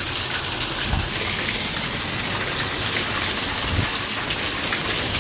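Water pouring down through a leaking ceiling in a steady heavy stream and splashing onto the floor below, a flood coming from the flat above.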